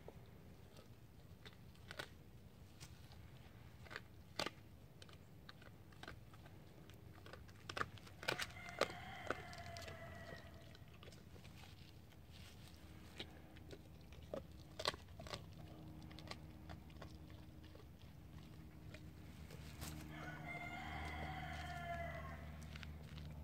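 Doberman crunching and gnawing a raw deer spine, with sharp cracks of bone scattered throughout, loudest about eight seconds in and again about halfway. A rooster crows twice in the background, about eight seconds in and near the end.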